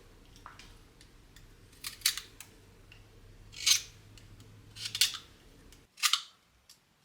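Utility knife blade shaving wood from a carpenter's pencil in several short scraping strokes, a second or so apart, sharpening it to a longer, finer point.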